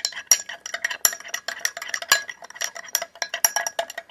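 A metal fork stirring liquid in a ribbed glass tumbler, clinking rapidly and irregularly against the glass wall, with the glass ringing briefly after each strike.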